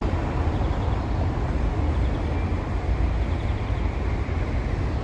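Steady running rumble of an open vintage electric tram car on the move, with wind buffeting the microphone.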